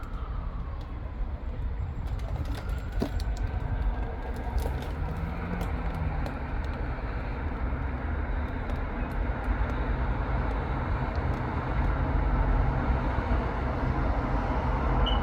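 Road traffic passing: a steady rumble of engines and tyres that grows louder toward the end, as a heavy vehicle approaches. A faint siren wail fades out in the first few seconds.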